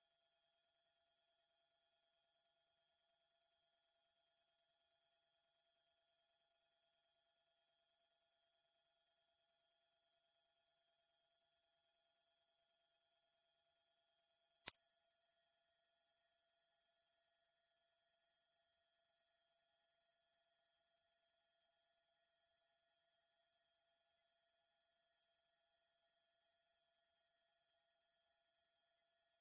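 Dog whistle sound effect: one steady, very high-pitched pure tone, held without change, with a tiny faint click about halfway through.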